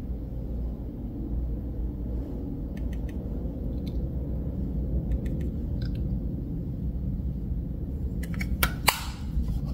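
Steady low room hum, with a few faint clicks and then a quick run of sharper clicks and taps near the end as makeup and a brush are handled.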